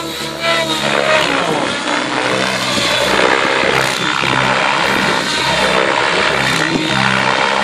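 Radio-controlled aerobatic model airplane's engine and propeller running loudly, the pitch stepping up and down as the throttle is worked.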